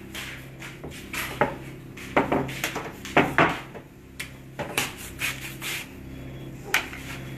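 A rolling pin knocking and rolling on a board, with hands pressing and sliding dough on a silicone mat, in a series of irregular knocks and scrapes. A steady low hum runs underneath.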